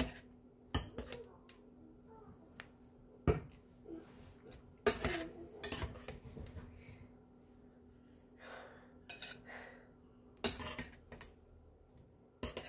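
Metal tongs clinking and scraping against a stainless-steel saucepan as ramen noodles are lifted out of the broth: sharp, irregular clinks a second or more apart. Under them is a faint steady hum that stops about ten seconds in.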